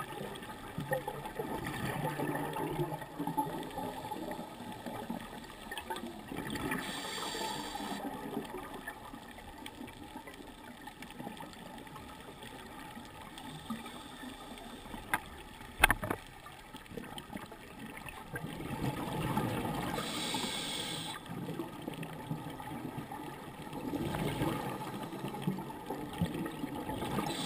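Scuba regulator breathing heard through a GoPro's underwater housing: exhaled air bubbling and gurgling in stretches, with a short inhalation hiss twice. A single sharp click about halfway through.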